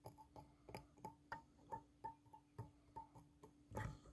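Faint, quick ticks about three a second, many with a brief ringing note, from the hare's ear dubbing on a fly's thorax being picked out with a small picking tool. A louder scrape comes near the end.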